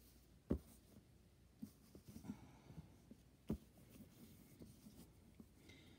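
Near silence broken by two soft knocks about three seconds apart and a few fainter ticks between: a hand pressing and shifting paper-pieced fabric triangles on a clear plastic box lid.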